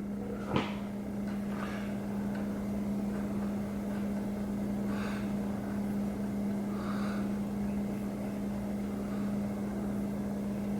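Steady mechanical hum with one constant low tone, and a single light tap about half a second in.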